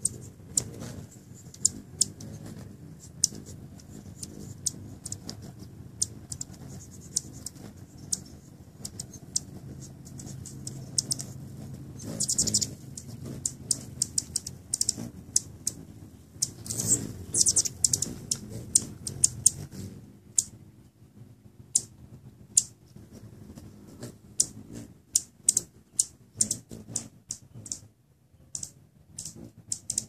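Hummingbirds giving sharp, high chip calls, scattered ticks that twice bunch into fast chattering runs.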